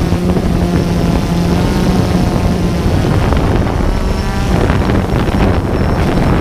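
DJI Phantom 2 quadcopter's motors and propellers buzzing close to its onboard camera's microphone. A steady hum for the first three seconds gives way to a rushing noise as the drone flies off low and fast.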